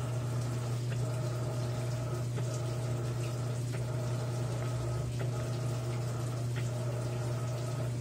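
Electrolux LAI17 17 kg top-load washing machine filling its tub with water over a load of towels: a steady rush of water over a steady low hum.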